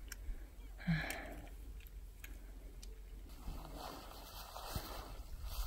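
Faint outdoor ambience in steady snowfall: a soft hiss of falling snow and wind that grows about three seconds in, with a short distant voice about a second in.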